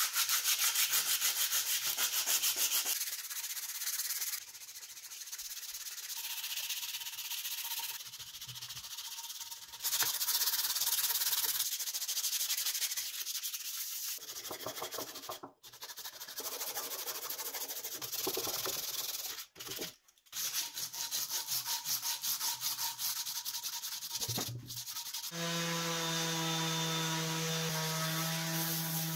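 Sandpaper on a hand block scrubbed rapidly back and forth over hardened body filler on a vise, a fast rasping scratch in quick strokes, broken by a few brief cuts. Near the end an electric random orbital sander starts and runs, a steady motor hum under the grinding of the pad on the filler.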